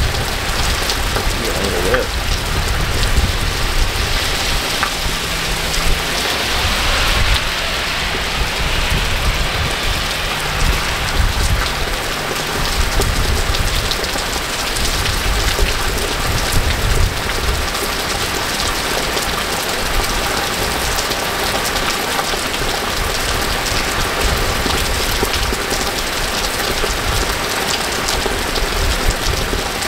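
Steady rain falling on a wet street and pavement, a continuous even hiss.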